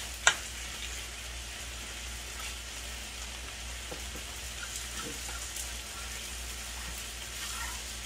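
Chinese greens and mushrooms sizzling steadily in a hot frying pan, with one sharp click of chopsticks against a pan just after the start and a few faint taps later.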